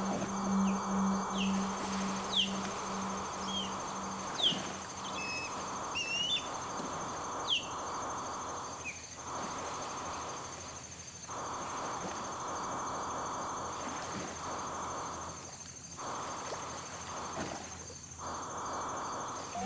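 Battery-powered synthesizer improvisation: a buzzing, insect-like drone with a steady high whine, a pulsing low tone for the first few seconds, and a run of short falling chirps over the first several seconds. The drone cuts out briefly a few times.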